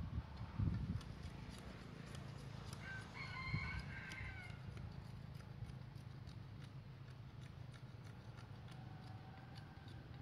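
A rooster crows once, about three seconds in, for about a second and a half, over faint scattered ticking. A few dull low knocks in the first second.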